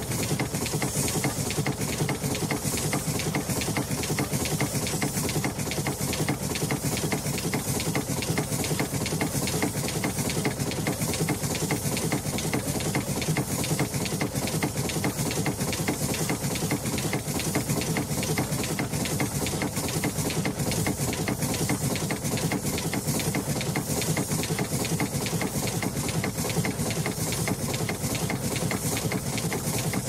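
Steam launch's steam engine running steadily, a fast even mechanical beat with the hiss of steam.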